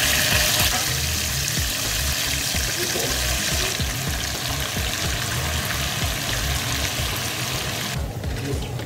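Raw gizzards hitting hot frying oil, sizzling loudly as more pieces are tipped in; the hiss cuts off sharply about eight seconds in.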